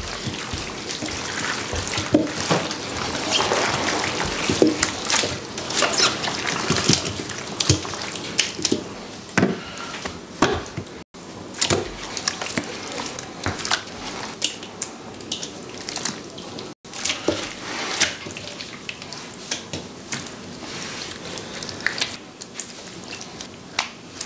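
Wet squelching and many short sharp clicks of gloved hands tossing young radish kimchi in thick red seasoning paste in a steel bowl, then the paste-coated radishes being packed into a plastic kimchi container.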